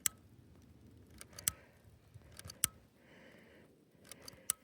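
A lighter clicked again and again without catching: four sharp clicks roughly a second apart, because the lighter is out of fluid. A short soft rustle about three seconds in.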